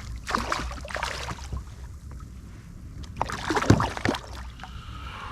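Water splashing beside a fishing kayak in two bursts, one at the start and one about three seconds in, as a hooked snook thrashes at the surface, over a steady low wind rumble on the microphone.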